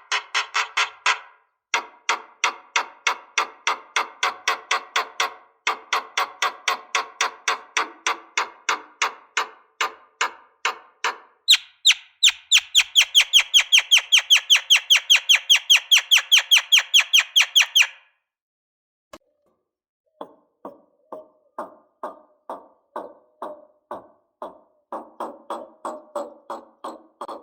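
Lovebird's long chattering trill ('ngekek'): long runs of sharp, rapidly repeated notes, about four to six a second. A louder, higher-pitched run comes about twelve seconds in, and after a short pause a fainter, lower run follows.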